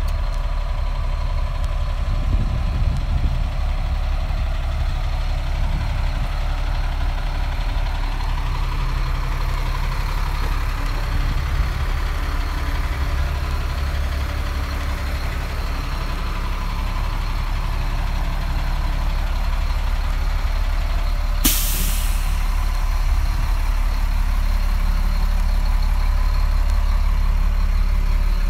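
Diesel engine of a 2001 Sterling truck tractor idling steadily, with one short, sharp hiss of released air about three quarters of the way through.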